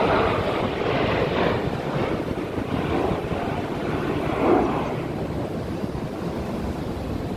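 Aircraft flying over, a rushing noise that swells near the start and again about four and a half seconds in, then eases off.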